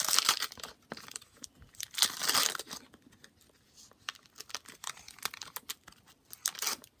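A 1989 Donruss wax pack wrapper being torn open and crinkled by hand: two louder tearing bursts, one at the start and one about two seconds in, with scattered small crackles between.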